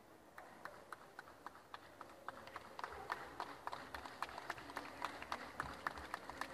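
Scattered hand clapping from a small audience, sparse at first and becoming steadier and louder about two and a half seconds in.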